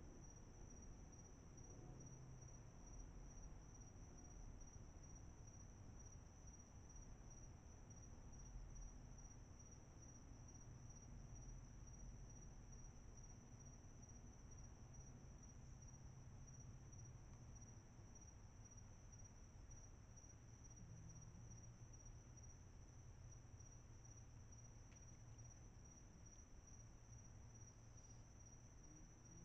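Night insects trilling steadily, a faint high-pitched pulsing trill that never breaks, over a faint low rumble.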